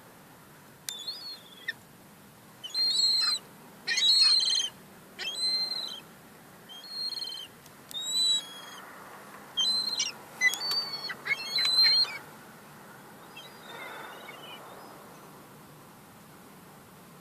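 Young gulls giving a run of high-pitched calls in quick succession, some short and some drawn out, tailing off to a single faint call near the end.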